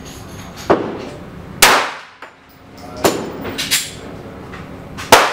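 Glock pistol with a Lone Wolf cut-rifled aftermarket barrel firing 230-grain full-metal-jacket hardball: three loud shots about one and a half to two seconds apart, with two lighter sharp cracks among them.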